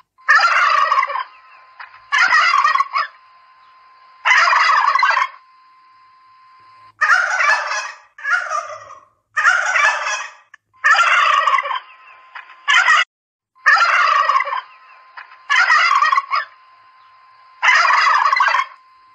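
Domestic turkeys gobbling over and over, about eleven rattling gobbles of roughly a second each, one every one to two seconds. A faint steady tone hums in the gaps between calls.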